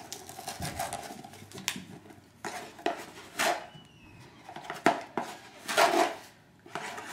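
A cardboard box of sugar being handled and worked open on a granite counter: a series of separate rustles, taps and knocks, with some clinks of kitchenware, the loudest about five and six seconds in.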